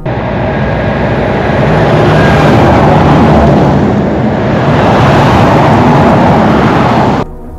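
Oversize-load escort SUV passing close by at highway speed: a loud rush of tyre and engine noise that builds over the first couple of seconds and cuts off suddenly near the end.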